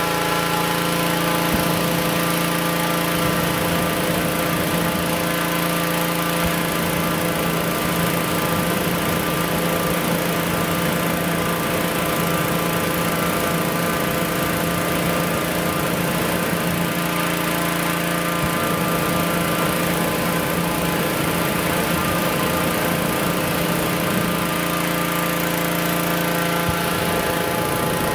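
Engine-driven inflator fan running steadily with an even, unchanging engine note, blowing cold air into a hot-air balloon envelope during cold inflation.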